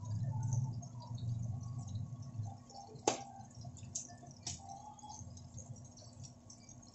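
Kitchen knife cutting fried pork on a plastic cutting board, with three sharp knocks of the blade on the board about three to four and a half seconds in. A low hum fades away over the first half.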